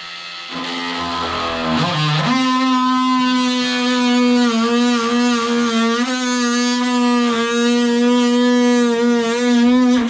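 Music: a single guitar note with distortion that starts softly, bends up in pitch about two seconds in, then is held with a slight wavering vibrato.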